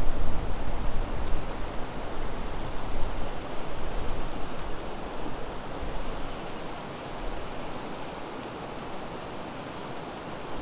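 Steady rush of flowing river water, with a low rumble in the first few seconds that eases off about halfway through.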